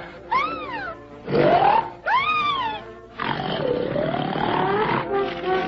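A person snoring: rasping inhaled snores alternate with groaning exhales that rise and then fall in pitch, with a longer rasping snore near the end.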